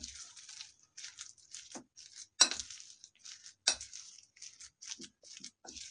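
A spoon stirring and scraping a thick mash of grated boiled potato and soaked semolina in a glass bowl, in short irregular strokes. The spoon clinks sharply against the glass a few times, loudest about two and a half and nearly four seconds in.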